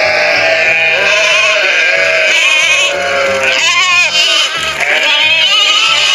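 Sheep bleating several times with a quavering voice, the loudest call about four seconds in, over background music with a steady beat.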